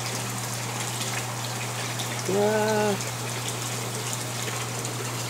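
Steady low mains hum and water hiss from the fish tub's pump running. About two and a half seconds in, a man gives a short wordless exclamation.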